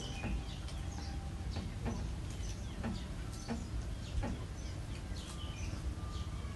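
Chickens clucking and small birds chirping in the background over a steady low rumble, with light rustling and clicks as lettuce and herbs are handled.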